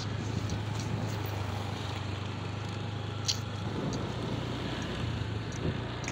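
Steady engine hum of a moving road vehicle with wind noise on the microphone, and a brief click about three seconds in.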